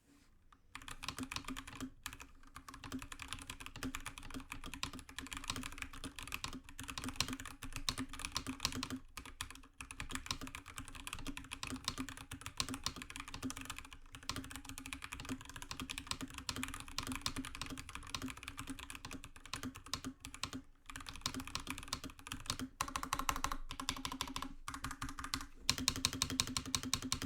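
Continuous fast typing on a Royal Kludge RK61 mechanical keyboard with brown (tactile) switches: a dense run of key clacks with a few brief pauses, getting faster and denser near the end.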